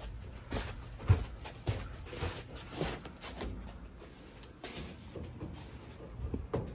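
Work-boot footsteps going down drop-cloth-covered stairs and onto the floor, a dull step about twice a second with the cloth rustling underfoot; the heaviest step comes about a second in.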